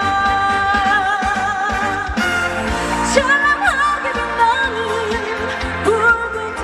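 Live band music of a trot-pop song played through a stage PA: a held lead melody with vibrato over a full band backing and a steady beat, changing texture about two seconds in.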